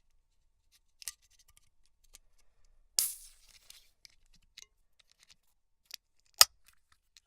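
Aluminium soda can being opened: a click of the ring-pull, then about three seconds in a sharp pop with a short hiss of escaping carbonation that fades in about half a second. Small ticks follow, and near the end a loud sharp click, the loudest sound of all.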